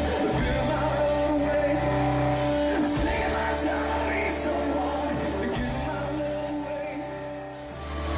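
Rock band playing a song, with guitar and bass under a sung, partly shouted lead vocal. The music drops in level about seven seconds in, then comes back up.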